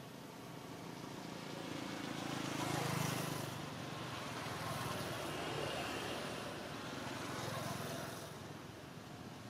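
A motor vehicle passing. Its engine and road noise swell to a peak about three seconds in, hold with smaller rises, then fade near the end.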